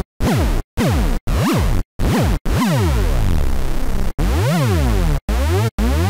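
Hoover rave synth patch in Xfer Serum, a sub oscillator layered with buzzy detuned oscillators an octave apart, playing a riff of separate notes. Each note swoops up in pitch and back down as an LFO modulates the pitch: four short stabs, then longer held notes from about halfway.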